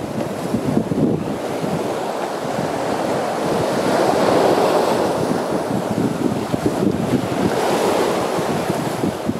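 Ocean surf breaking over large boulders: a continuous rushing wash of water that swells about four seconds in and again near the end.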